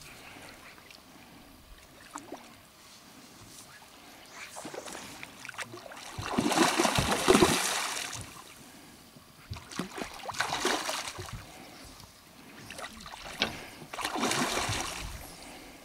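A hooked carp thrashing at the surface of shallow water, splashing in bursts: the loudest about six to eight seconds in, then shorter splashes around ten seconds and again near the end.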